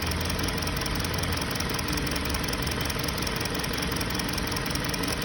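2020 Hyundai Sonata four-cylinder engine idling steadily but unevenly with a cylinder 2 misfire (code P0302). It runs the same with the cylinder 2 ignition coil unplugged, the sign that this cylinder is already not firing.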